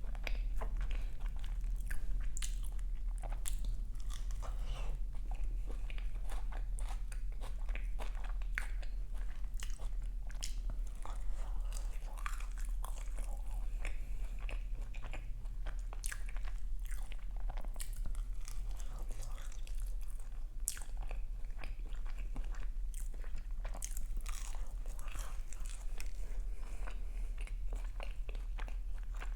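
Close-miked eating sounds: a person biting and chewing crisp pastry, with irregular crunchy crackles throughout.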